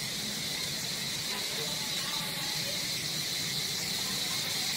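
Insect chorus: a steady, high, unbroken buzz.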